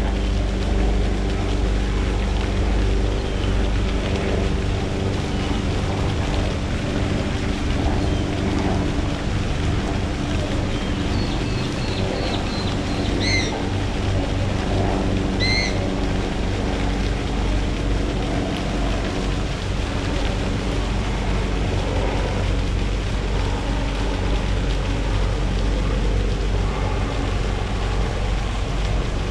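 Steady outdoor rumble and hiss with a constant low hum underneath; a bird gives two short chirps, about 13 and 15 seconds in.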